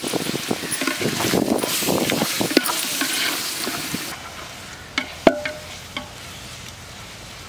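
Wooden spoon stirring freshly added chopped tomatoes into onions frying in oil in an aluminium pot, with scraping and sizzling. About four seconds in it goes quieter, with a few sharp knocks and a short ringing clang a little past five seconds.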